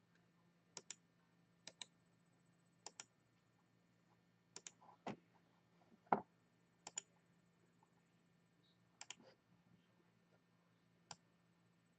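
Faint computer mouse clicks, mostly in quick pairs, every one to two seconds, with one louder dull knock about six seconds in.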